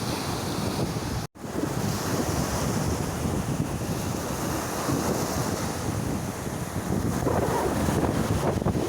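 Sea waves washing onto the shore with wind buffeting the microphone, swelling louder near the end. The sound cuts out completely for an instant about a second in.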